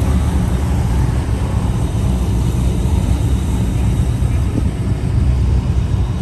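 Steady low rumble of a running vehicle, with indistinct voices underneath.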